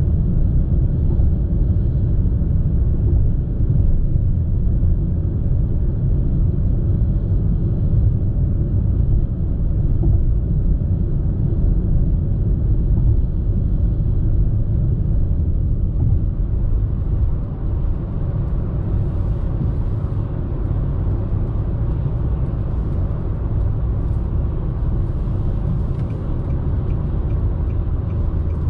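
Road and wind noise inside a Nissan Sylphy's cabin while it cruises on a highway at around 120 km/h: a steady, loud low rumble with hiss over it. A little past halfway the hiss grows stronger. The driver finds the cabin still somewhat noisy above 110 km/h.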